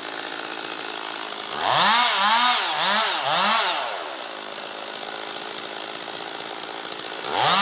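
Chainsaw idling, revved up and down four times in quick succession about two seconds in, then dropping back to idle and revving up again near the end.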